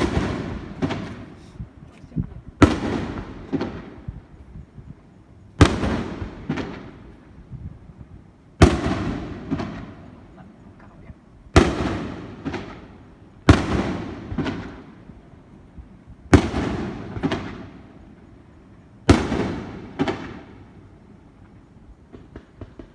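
Aerial firework shells bursting one after another: about eight sharp bangs, roughly every three seconds, each followed by a short trail of crackles that fades out.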